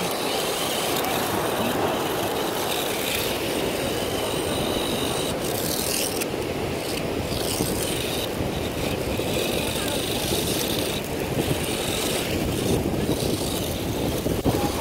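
Steady rushing beach ambience of wind and surf, holding level throughout with no distinct events standing out.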